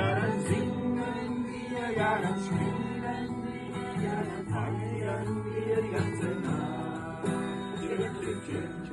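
A German campfire song sung to acoustic guitar accompaniment.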